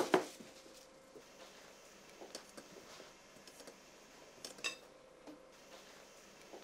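Metal kitchen utensils and pots clinking and knocking at a work counter: two sharp knocks at the start, then scattered light clinks, one with a brief ring about four and a half seconds in.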